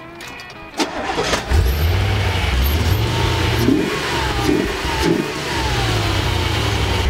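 1987 Chevrolet Corvette's 5.7-litre V8 cranked on the key and catching about a second and a half in, then revved briefly a few times, each rev falling back, before running steadily at idle.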